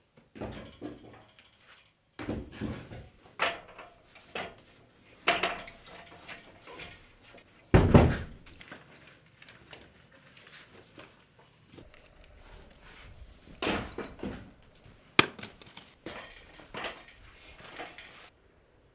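Demolition rubble and wood being handled and dropped: irregular knocks, clatters and thuds, the loudest a heavy thud about eight seconds in. It cuts off suddenly just before the end.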